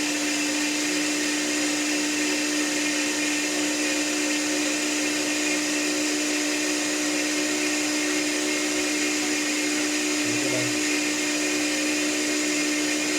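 Steady hum of a running electric motor or fan: one constant low tone with a hiss over it, unchanging throughout.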